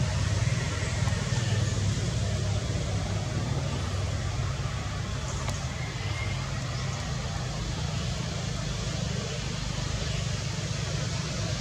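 Steady low rumbling background noise with an even hiss over it, with no distinct events.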